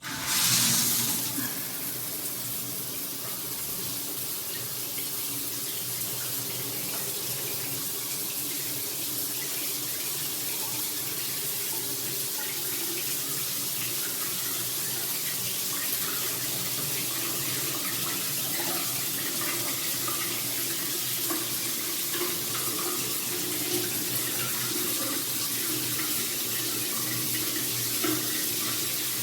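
A filtered rain shower head spraying water: the flow comes on suddenly, then runs as a steady rush of water.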